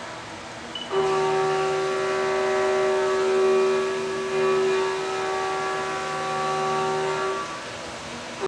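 End mill in a Haas CNC milling machine cutting grade 5 (6-4) titanium under flood coolant, with a steady high-pitched whine over the hiss of spraying coolant. The whine drops out briefly about a second in, then returns and holds, and weakens near the end.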